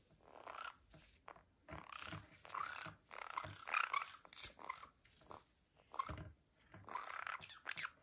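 Conures, a black-capped and a green-cheeked, making soft chatter in short, irregular bursts while they play, with a few sharp clicks among them.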